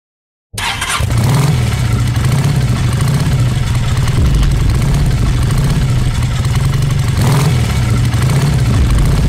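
Motorcycle engine starting sharply about half a second in, then running loud and steady with some revving.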